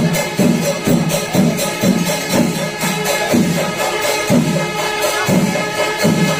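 Kerala temple festival percussion ensemble (melam) playing: drums strike a steady pulse about once or twice a second under continuous clashing of small cymbals, with some held tones above.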